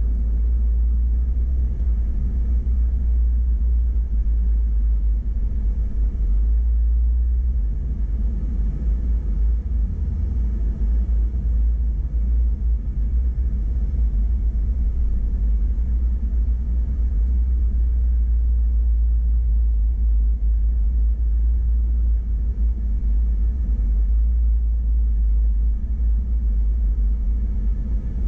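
Steady low rumble of an off-road vehicle driving slowly along a dirt trail: engine and tires, with no changes in pace.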